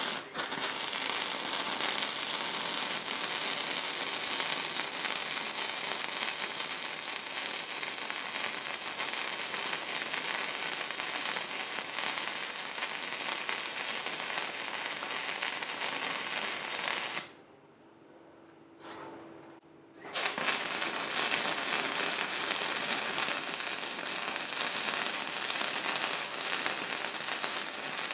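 Gasless flux-core wire welding with a modified Harbor Freight 90 amp flux core welder: the arc crackles and spits steadily as a bead is laid on steel angle iron. It stops for about three seconds a little past halfway, leaving a faint hum, then strikes again and carries on.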